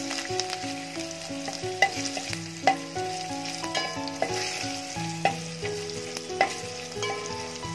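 Garlic, curry leaves and cumin seeds sizzling in hot oil in a stainless steel pot as a steel spoon stirs them, with a few sharp clinks of the spoon against the pot. This is the tempering (tadka) stage, with the garlic being browned in the oil.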